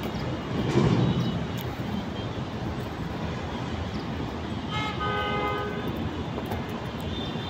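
Road traffic noise from a street below, swelling as a vehicle passes about a second in. A little past the middle, a vehicle horn sounds once and holds for about a second and a half.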